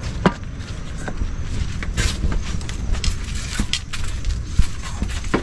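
A steady low rumble with scattered light clicks and knocks, the sharpest just after the start and another near the end.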